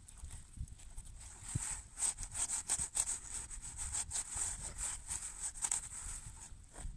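Thin fillet knife sawing and scraping through a raw burbot's flesh along its bones in short, repeated strokes.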